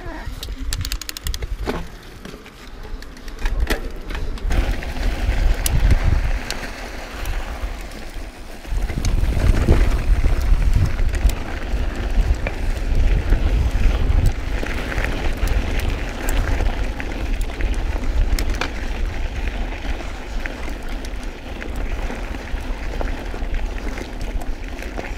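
Mountain bike riding down a dirt and gravel trail: tyres crunching over loose gravel with frequent small clicks and rattles from the bike, and wind buffeting the action-camera microphone. The rumble grows louder about nine seconds in.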